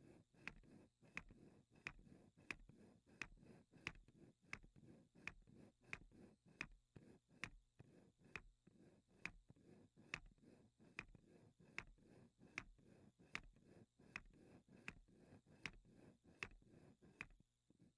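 A spinning wooden model of Bessler's wheel, faintly clicking at an even pace of about three clicks every two seconds, with a low rumble between them. The clicks stop shortly before the end.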